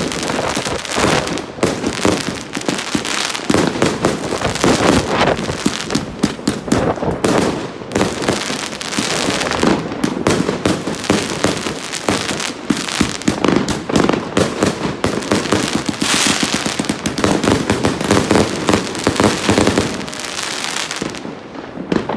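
A 100-shot, 30 mm compound firework cake firing in dense, rapid salvos, with launches and bursting reports overlapping in a continuous barrage that eases slightly near the end.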